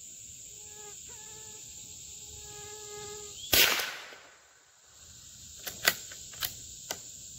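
A single shot from a Howa M1100 bolt-action .22LR rifle about three and a half seconds in, followed about two seconds later by four quick metallic clicks of the bolt being worked. A steady high buzz of insects runs underneath.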